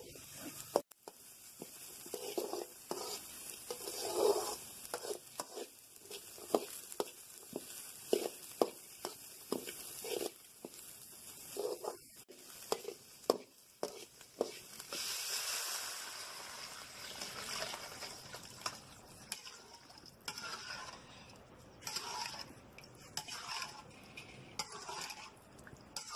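Steel ladle scraping and knocking against a metal kadai while chopped vegetables sizzle in hot oil. About fifteen seconds in, water is poured into the hot pan with a burst of hissing, and the ladle then stirs through the liquid.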